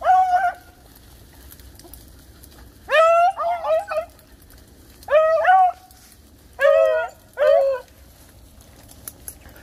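Rabbit-hunting beagle giving short, high yelps, about seven in all, mostly in quick pairs.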